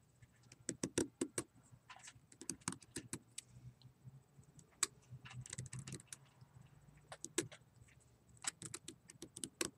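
Knife blade shaving a wooden chopstick: short, irregular scraping clicks, some in quick runs, as curls of wood come off. The wood is really tough.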